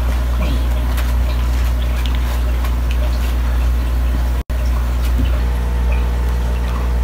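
A steady low hum, loud and unchanging, with a few faint clicks over it; it cuts out for an instant about halfway through.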